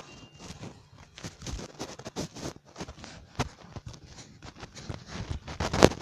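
Irregular tapping and clicking, a few knocks a second, with the loudest knock just before the end.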